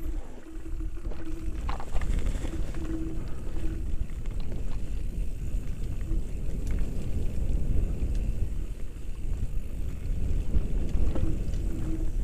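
Mountain bike riding fast down a leaf-covered dirt trail, picked up on a helmet camera: a steady heavy rumble of tyres and wind on the microphone, with occasional knocks from the bike over bumps. A short low hum comes and goes several times.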